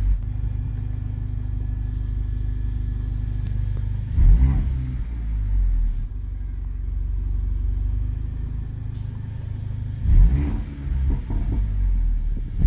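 Mercedes-AMG CLA 45's 2.0-litre turbocharged four-cylinder idling through its AMG performance exhaust, blipped twice, about 4 and 10 seconds in, with uneven crackles as the revs drop back to idle.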